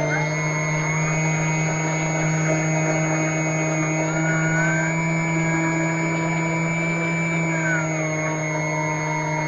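Electric motor and propeller of an FMS Cessna 182 RC model plane running steadily in flight, heard from on board as a constant droning whine with a low hum underneath.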